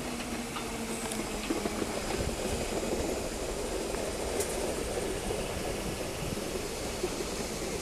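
London Underground Bakerloo line 1972 Stock tube train running into the platform. A faint steady whine fades out about a second and a half in, then steady rumbling of the wheels on the rails carries on as the carriages pass.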